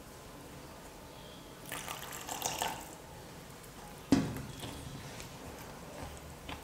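Silicone spatula stirring crushed biscuit powder into milk in a glass bowl: a stretch of wet, sloshing mixing sounds about two seconds in, then a single sharp knock a little after four seconds.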